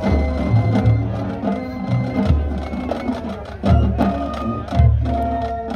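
Marching band playing live: low held notes that change every half second or so, higher melodic lines above, and sharp percussion strikes.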